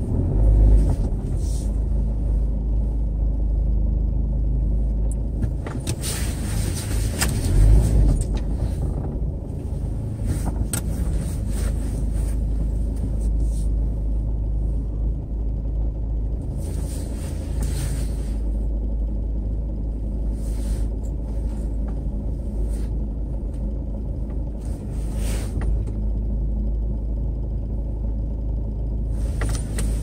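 A car driving, heard from inside the cabin: steady low engine and road rumble, with a few short hissing swells over it and a couple of low bumps.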